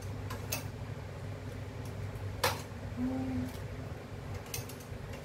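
Steady low hum of a running appliance or fan in a small room, with a few light clicks and knocks of kitchen handling, the sharpest about two and a half seconds in.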